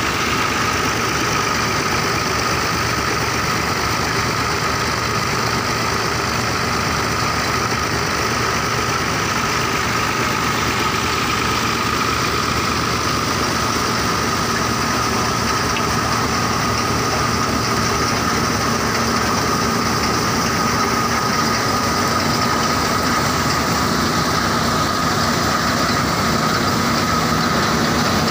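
Tractor diesel engine running steadily, driving a thresher through its PTO shaft, with a constant high whine from the machinery over the engine's rumble.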